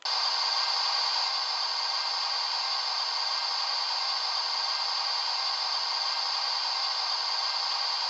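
Steady steam hiss of a standing steam locomotive, played by the DCC sound decoder through the small speaker of a Hornby model of LMS 'Duchess of Montrose'. The hiss starts suddenly at the beginning and holds even, with no chuffing.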